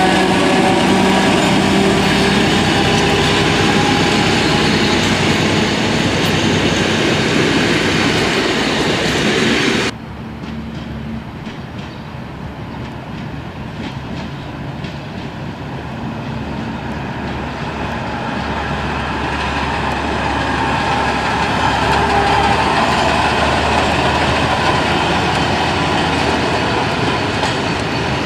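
ČD class 735 diesel locomotive's engine running loud close by, with several steady tones, until a sudden cut about ten seconds in. Then a ČD class 850 diesel railcar and its train run through the station, wheels on the rails, growing louder as they come nearer.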